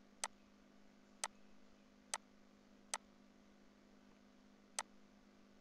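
Five sharp single clicks of a computer mouse, spaced irregularly, over faint steady room tone.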